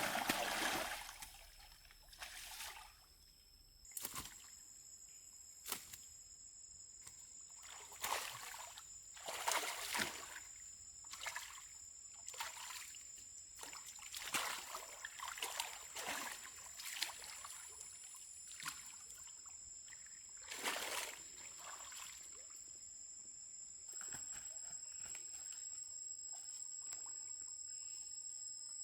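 Water sloshing and splashing in short, irregular bursts every second or two. A steady high-pitched tone joins about four seconds in.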